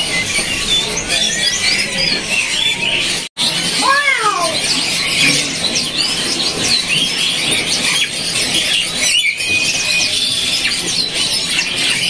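Caged songbirds singing a fast stream of high chirps, trills and short sliding whistles. First a champion-grade tledekan gunung sings, then, after a sudden cut about a third of the way in, a blackthroat (yellow-rumped seedeater).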